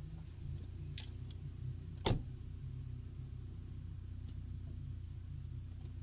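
UAZ Patriot's ZMZ Pro petrol engine running steadily, with one sharp knock about two seconds in and a couple of faint ticks.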